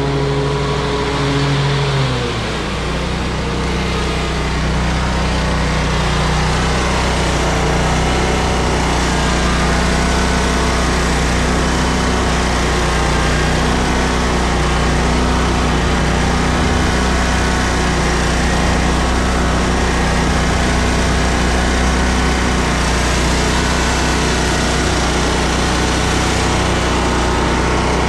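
Toro Z-Master 4000 zero-turn mower engine running steadily while mowing, heard up close from the seat. Its pitch drops about two seconds in, then holds steady.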